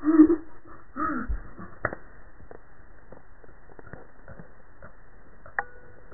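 Two short vocal sounds in the first second and a half, the first the loudest, then faint scattered clicks and rubbing as the camera is handled against the cat's fur.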